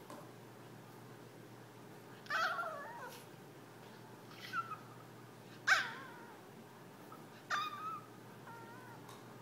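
Small Yorkshire terrier whining in a series of about five short, high calls that fall in pitch, the loudest a little past the middle: a dog begging to be played with.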